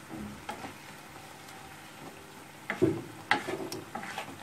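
Bottle gourd mash being stirred in a pan on the heat. A faint steady sizzle runs under it, and a few louder scrapes and knocks of the utensil against the pan come about three seconds in.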